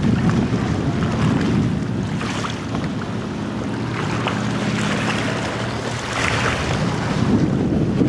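Wind buffeting the microphone over harbour water lapping and splashing, with a low steady hum through the middle.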